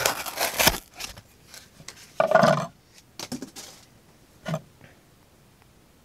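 A stonewashed tanto blade of a compact framelock folding knife rasps through corrugated cardboard in the first second. It is followed by a few knocks and scrapes as the cardboard is handled on a wooden table, and a short click about four and a half seconds in.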